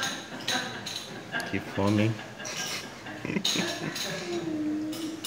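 Metal fork scraping and clicking against a ceramic bowl as spaghetti is twirled, with several separate clinks.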